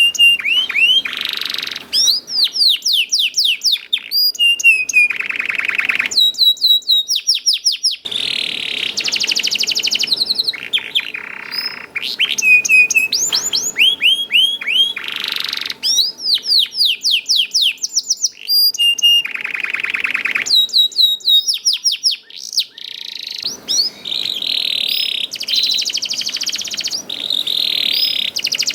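Domestic canary singing a long, continuous song: rapid rolls of falling, sweeping chirps alternate with buzzy trills and short held notes, the phrase changing every second or two.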